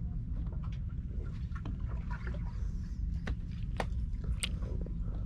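A boat's engine running low and steady, with a few sharp clicks and knocks between about three and four and a half seconds in.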